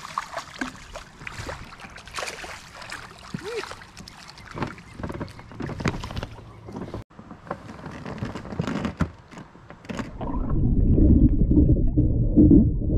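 A hooked fish thrashing at the surface beside a drift boat: splashing water with small knocks and clicks. About ten seconds in, the sound changes to a louder, deep, muffled water rumble heard with the microphone underwater.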